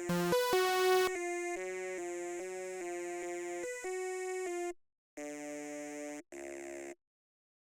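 Synthesizer line run through a formant filter for a psytrance vocal synth: a quick repeating pattern of short pitched notes that stops about two thirds of the way in, followed by two short held notes and then silence.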